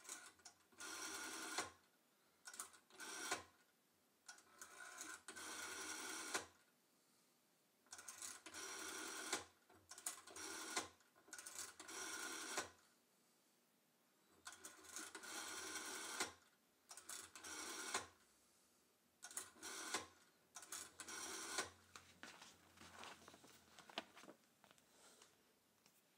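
Rotary dial of a black Ericsson Etelco Bakelite telephone being dialed digit after digit: a short burst of sound with each turn and return of the dial, about ten in a row with brief pauses between them.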